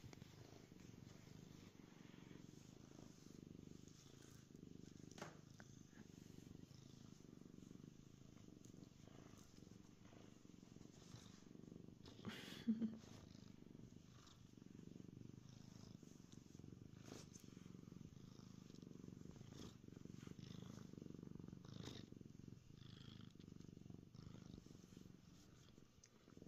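Domestic cat purring steadily and faintly, the sound of a content, happy cat. There is one brief louder noise about halfway through.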